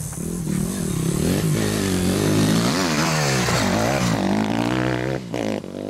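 Dirt bike engine revving as the bike rides past, its pitch rising and falling with the throttle, loudest in the middle.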